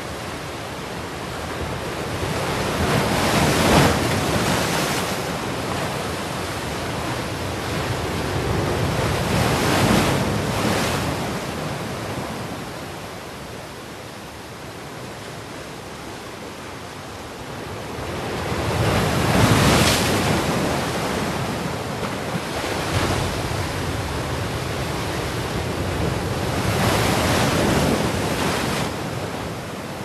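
Black Sea storm surf: large waves breaking heavily on the beach one after another, the noise of the surf swelling and easing about four times.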